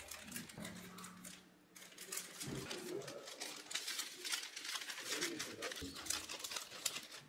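Scissors snipping through a thin translucent template sheet, with soft crinkling and clicks as the sheet is handled and cut.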